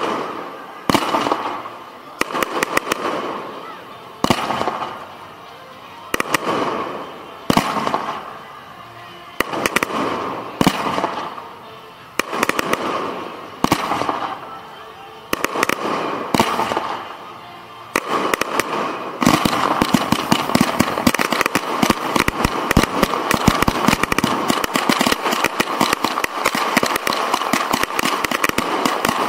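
Fireworks going off: a sharp bang every second or two, each fading into crackle, then, about nineteen seconds in, a dense, continuous rapid-fire crackle of shots fired at close range from a ground launch rack.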